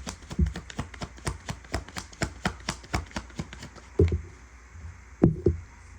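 A deck of tarot cards being shuffled by hand: a fast run of crisp card snaps, about four a second. The snaps stop about four seconds in, and a few soft thumps follow as the cards are handled and set down.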